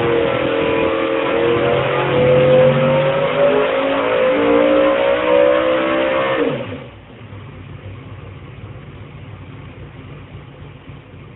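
Car engine accelerating hard, its pitch climbing slowly, then falling sharply in pitch and loudness about six and a half seconds in, leaving a much quieter engine sound.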